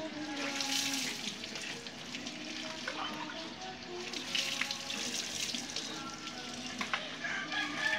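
Water poured from a plastic dipper splashing onto a motorcycle's rear wheel and exhaust during washing, in several pours, with the strongest splashing about a second in and again around four to five seconds in.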